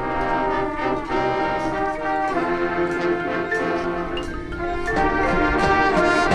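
Marching band brass section playing sustained full chords, with percussion strokes at a steady pulse underneath.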